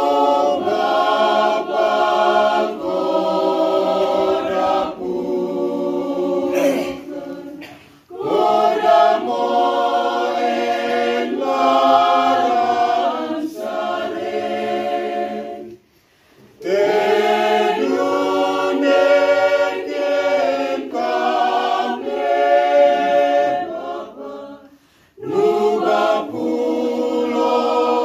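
Mixed choir of men and women singing a hymn unaccompanied, in phrases broken by short pauses about every eight seconds.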